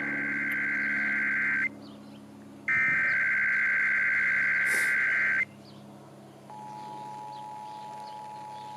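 Emergency Alert System test tones: the end of one SAME digital header burst, a harsh data buzz, then a second full burst about three seconds long. After about a second's pause, the steady two-tone attention signal of 853 and 960 Hz begins about 6.5 seconds in.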